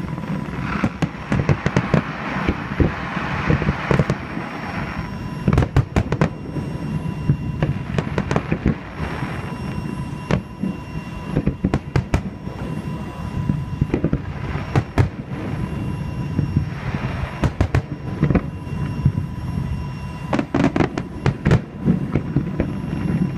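Aerial fireworks bursting: a continuous run of sharp bangs at irregular intervals, some coming in quick clusters, with crackling hiss between them.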